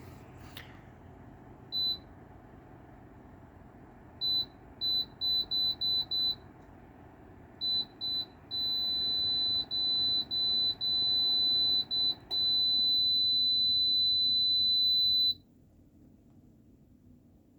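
Electronic beeps from a Dreo ceramic space heater's control panel: a single high beep, then a quick run of short beeps, then longer beeps with short gaps that stop suddenly near the end. The heater's steady fan noise runs underneath and dies away shortly before the beeping stops.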